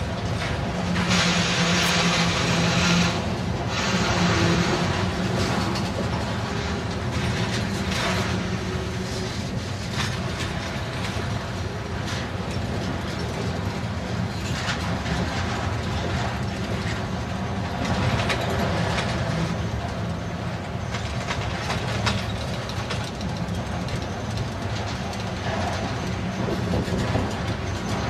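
Freight train of loaded flatcars rolling past close by: a steady rumble of steel wheels on rail, with repeated clacks and knocks as the wheels cross rail joints. It is louder and hissier for a couple of seconds about a second in.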